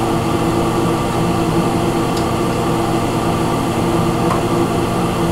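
Steady mechanical hum of a running motor, holding several fixed low tones, with two faint clicks about two and four seconds in.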